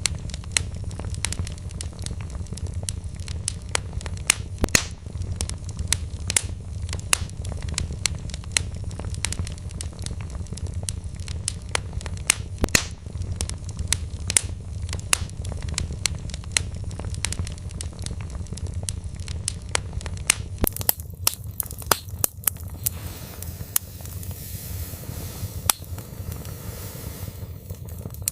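Wood fire crackling in a fireplace: frequent sharp pops and snaps over a steady low rumble. About three-quarters of the way through, the low rumble drops away and a high hiss comes in.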